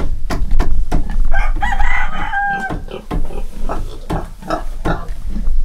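A rooster crows once, a held call of about a second and a half starting about one and a half seconds in. Short knocks and rustles come before and after it.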